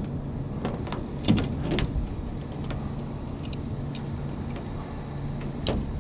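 Scattered clicks and knocks of tools and metal parts being handled while a refrigerant line's expansion valve is replaced, over a steady low hum. The sharpest knocks come about a second in and near the end.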